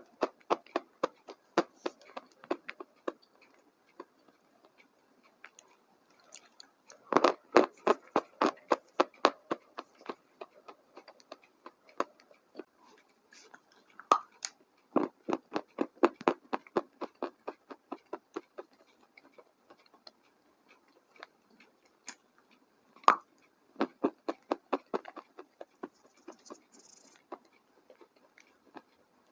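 A person chewing food, in runs of quick, evenly spaced chewing strokes several a second, broken by short pauses.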